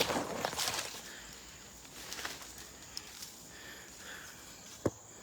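Footsteps and rustling on a muddy forest trail, loudest in the first second, with a single sharp click near the end.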